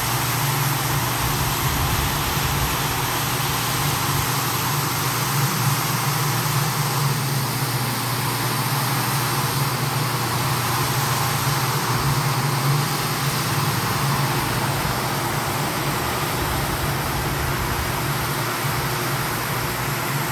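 Single-disc rotary floor machine running steadily as its brush shampoos a wet, foaming rug: a constant motor hum under an even scrubbing hiss.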